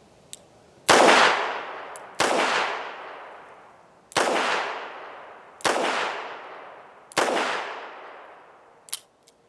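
Five shots from a Charter Arms Undercover .38 Special snub-nose revolver fired double action, one every second and a half or so, each trailing off in an echo. A couple of light clicks come near the end.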